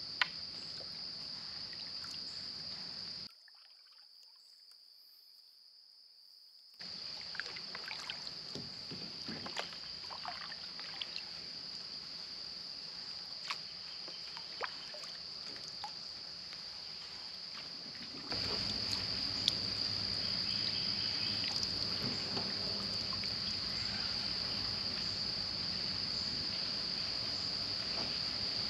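A small boat being paddled on a bayou: paddle dips and drips with scattered light knocks, over a steady high-pitched insect drone. The sound drops away for a few seconds near the start and comes back louder about two-thirds of the way through.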